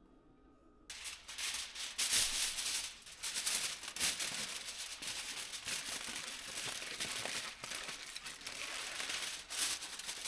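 Continuous rattling and shaking, a dense stream of small clicks and rustles that starts suddenly about a second in.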